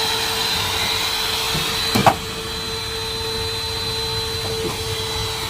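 Vacuum cleaner motor running steadily with a high whine, with one sharp knock about two seconds in.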